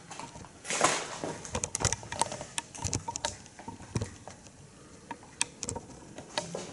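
Irregular light footsteps, taps and clicks on a wooden floor, with a louder scuff about a second in.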